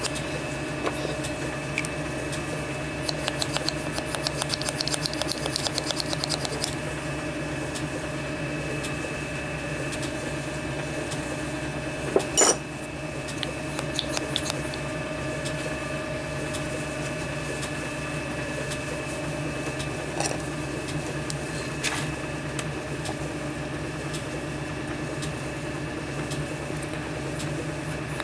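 Steady machine hum, with light clicks and taps of small brass steam-engine parts being handled as the piston is worked in its cylinder: a quick run of ticks a few seconds in, one sharp knock near the middle, and a couple of fainter clicks later.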